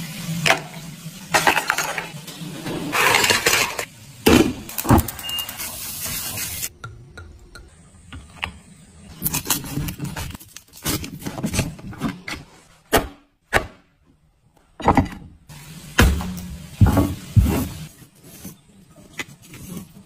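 Seafood being handled and cut: shells clinking and clattering in a steel tray, a knife cracking and scraping through a lobster's shell on a cutting board, in a series of sharp knocks and scrapes.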